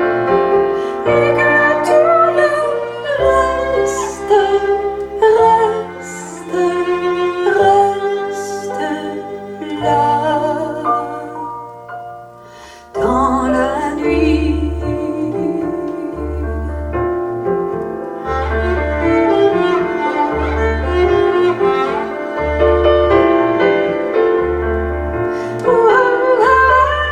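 Recorded music played back over a high-end stereo system: an instrumental passage of a French song, with cello and piano. The music thins and fades briefly about halfway through, then comes back with deep bass notes pulsing at an even pace.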